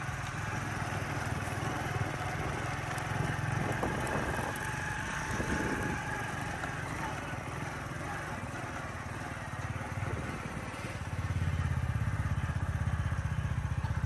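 Motorcycle engine running steadily with an even low rumble, louder from about eleven seconds in.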